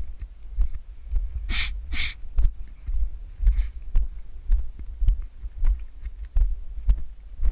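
A hiker's footsteps, heard as low thuds about twice a second, as if through a camera carried on the body. There are two short hisses of breath about one and a half seconds in.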